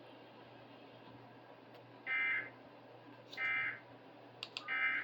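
Emergency Alert System end-of-message data bursts: three short warbling digital tone bursts, each about half a second long and about a second apart, sent at the close of the AMBER Alert broadcast.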